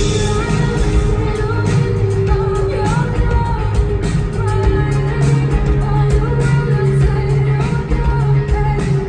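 Live band performing a pop song: a woman sings lead into a handheld microphone over electric guitars and drums.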